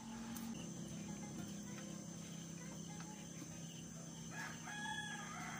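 A rooster crows once near the end, a drawn-out pitched call, over a steady low hum.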